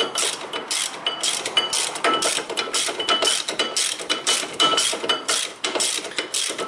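Ratchet wrench with a 17 mm socket clicking in quick repeated back-and-forth strokes with a metallic ring, as it runs a brake caliper bracket bolt in.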